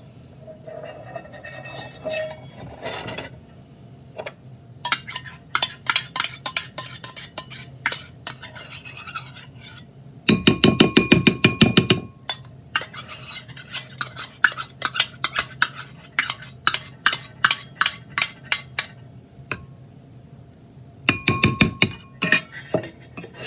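Metal spoon stirring school glue and water in a container, clinking and scraping against its sides in quick strokes, with a dense flurry of clinks about ten seconds in and another near the end.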